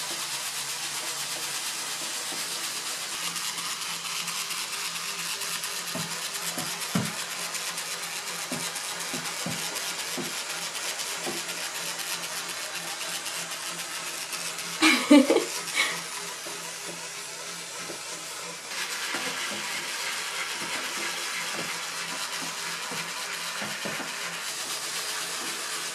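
Steady whirring and water churning from several wind-up and battery-powered swimming fish and turtle bath toys paddling in a tub, with a brief louder sound about fifteen seconds in.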